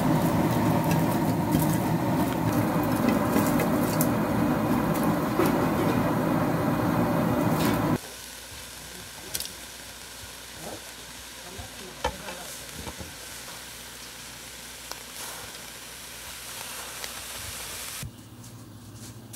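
King prawns cooking on a bed of coarse salt in a lidded pot over a gas burner: a loud, dense sizzling hiss with scattered sharp ticks. About eight seconds in it drops abruptly to a much quieter hiss with occasional small clicks, and falls quieter again near the end.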